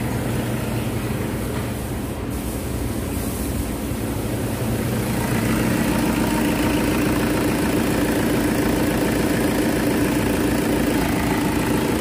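Toyota Fortuner engine idling steadily, running a little louder from about halfway through, while its charging voltage is checked with the lights on; the alternator is not charging.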